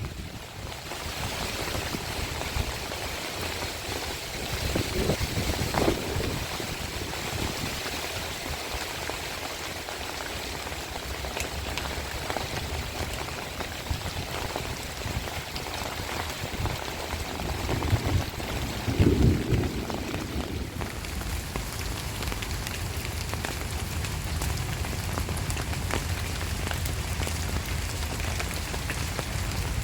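Heavy rain pouring steadily, with brief low rumbling swells about five seconds in and again about two-thirds of the way through.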